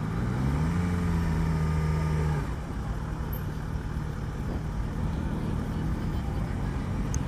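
Yamaha XJ6 inline-four motorcycle engine running at low speed: the revs rise in the first second, hold, then ease back to a slightly lower steady pitch about two and a half seconds in.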